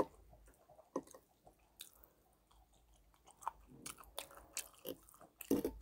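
Faint close-up chewing and biting of Korean fried food (twigim) coated in tteokbokki sauce, with scattered short crunches that come thicker in the second half.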